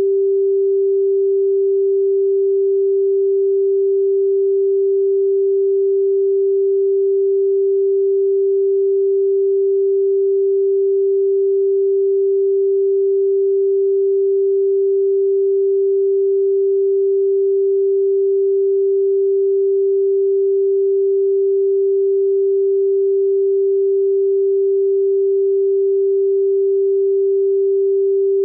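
A steady pure sine tone at 392 Hz, the note G4, held unchanged at one level.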